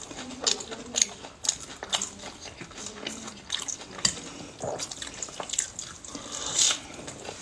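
Close-miked eating: irregular wet chewing and lip-smacking clicks as fried food is bitten and chewed, with a louder slurp of black bean noodles about six and a half seconds in.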